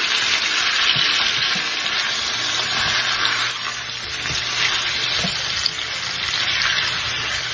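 Raw chicken pieces sizzling in hot oil with garlic and ginger in a stainless steel pan, freshly added and being stirred with a spatula, with a few faint knocks of the spatula against the pan.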